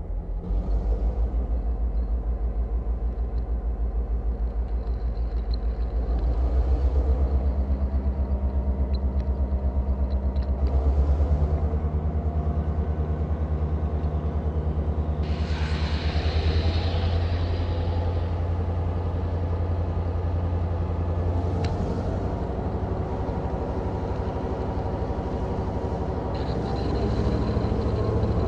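Railcar running: a steady, pulsing low drone that steps down in pitch about eleven seconds in and shifts again near the end, with a short hiss near the middle and a single click a few seconds later.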